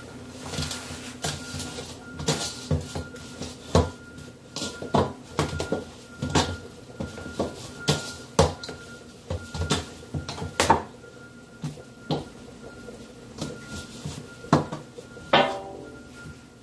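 Bread dough being kneaded and punched in a stainless steel mixing bowl: irregular thumps and knocks of hands and dough against the metal, one or two a second. Near the end one louder knock leaves the steel bowl ringing briefly.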